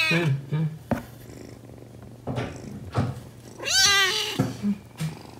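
Hungry black kitten meowing: one high, arching meow right at the start and a second about four seconds in, with a couple of soft knocks between.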